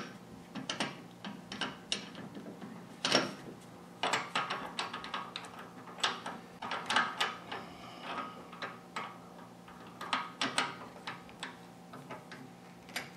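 Key turning in a four-jaw lathe chuck, tightening its jaws onto a wooden V-block: a run of irregular metal clicks and short rattles.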